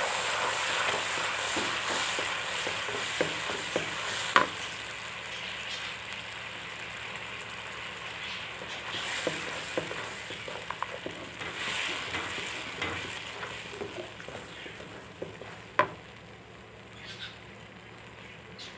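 Ground tomato and ketchup sauce sizzling in hot ghee in a karahi while a wooden spatula stirs it. The sizzle dies down gradually, and there are two sharp knocks of the spatula on the pan, one about four seconds in and one near the end.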